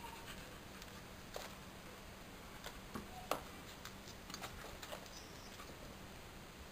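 A dog's claws ticking on paving stones as it walks: about ten faint, scattered clicks, the sharpest a little over three seconds in.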